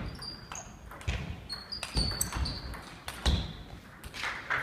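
Table tennis play in a sports hall: irregular thuds and sharp clicks of ball and footsteps, with short high squeaks of shoes on the hall floor.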